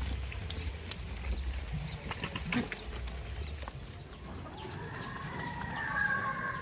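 A long, drawn-out farm animal call, starting about four seconds in and lasting a little over two seconds. Before it there are scattered clicks and knocks over a low rumble.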